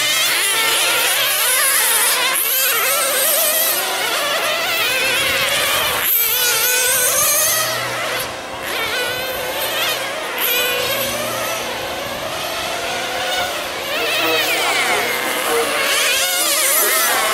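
Several nitro RC sedans' small two-stroke glow-fuel engines buzzing at high revs at once, their pitches rising and falling as the cars throttle up and back off around the track.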